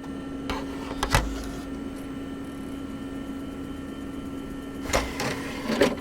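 A steady hum with one held tone, with a few short clicks and knocks about a second in and again near the end.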